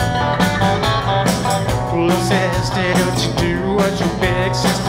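Live rock-and-roll band playing an instrumental passage: electric guitars and bass guitar over a steady drum beat.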